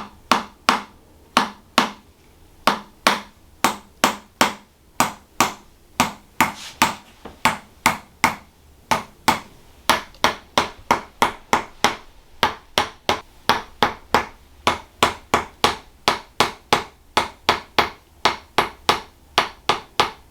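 Handheld chiropractic adjusting instrument (the 'hammer') tapping over and over on the patient's body, a steady run of sharp clicks at about three a second.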